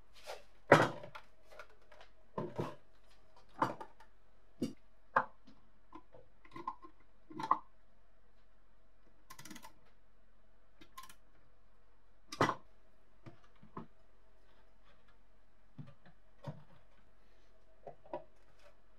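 Scattered sharp clicks and knocks of a metal screwdriver and socket wrench and hard plastic parts as a kitchen scale's orange plastic mechanism is reassembled. The loudest knocks come about a second in and about twelve seconds in, over a faint steady hum.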